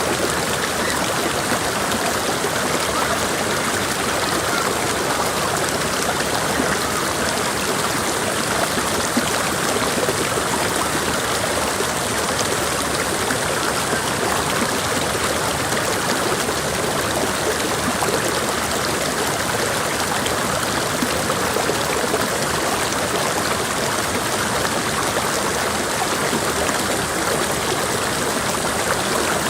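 Mountain creek water rushing and splashing over rocks, a steady even rush with no breaks.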